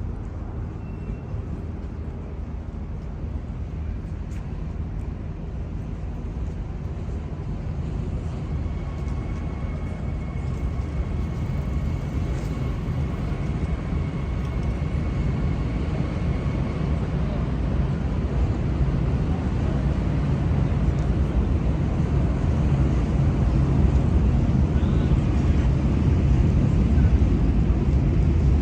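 Low, steady engine rumble that grows gradually louder, as of a large motor approaching.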